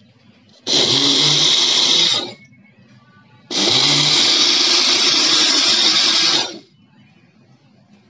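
Electric blender running in two bursts, first about a second and a half, then about three seconds, blending eggs and sugar in its jar.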